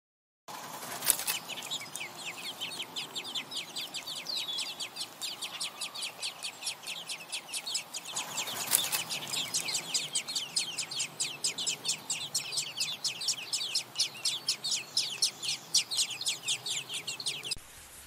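Nestlings begging for food: a rapid, steady run of short high chirps, about five a second, which cuts off abruptly near the end. Two sharp clicks stand out, about a second in and about halfway through.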